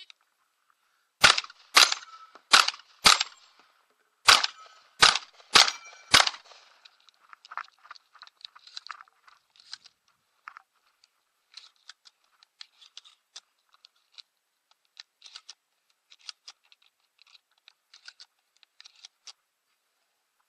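Eight shotgun shots in two quick strings of four, with a short pause between the strings, followed by a long run of faint scattered clicks and rattles.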